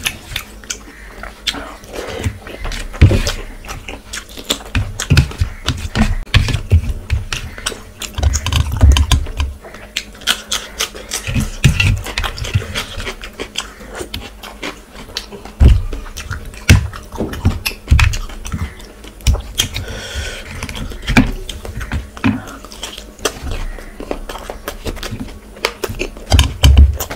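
Close-miked eating sounds: wet chewing and lip smacking of rice and mutton curry eaten by hand, with fingers squishing and mixing rice on a steel plate. The sounds come as irregular clicks and soft thumps throughout.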